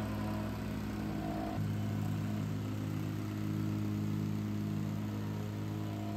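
Gas-engine vibratory plate compactor running steadily, pounding down a base of crushed rock and sand. Its engine tone shifts slightly about a second and a half in.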